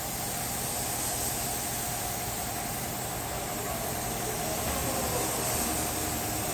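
Gravity-feed paint spray gun hissing steadily as compressed air atomises white paint onto a car body panel.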